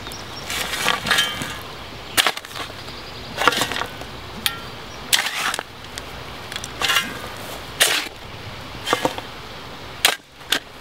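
Steel shovel blade scooping loose dirt and dumping it into a post hole around a wooden post, a short scrape or thud about once a second.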